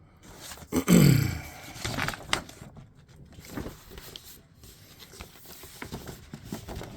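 Paper rustling and crinkling as a folded poster is handled and opened out, with scattered small clicks and scrapes. About a second in, a brief low voice sound falls in pitch; it is the loudest thing here.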